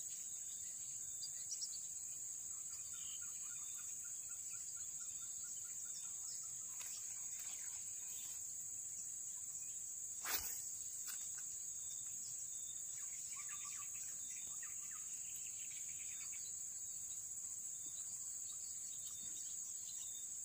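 Steady high-pitched drone of insects, with one sharp click about halfway through.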